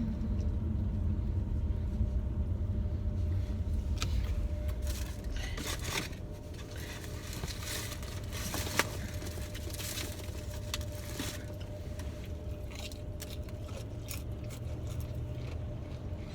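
Steady low road and engine rumble inside a moving car's cabin, with scattered rustling and clicking through the middle and one sharper click about nine seconds in.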